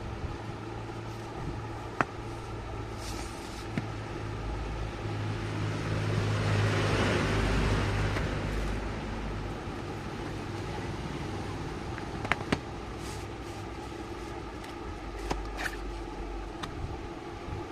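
A steady low hum with a swell of noise that rises and fades over a few seconds near the middle, like a motor vehicle passing, and a few sharp clicks.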